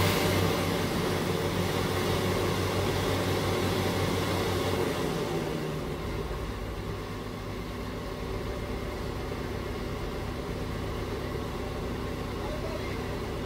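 Heavy earthmoving equipment's diesel engine running steadily. It eases off and gets quieter about five seconds in.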